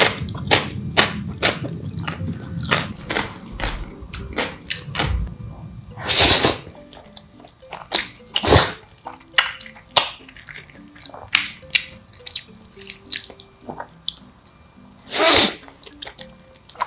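Close-miked eating of black bean sauce noodles: wet chewing and lip-smacking clicks, with two loud slurps of noodles, one about six seconds in and one near the end.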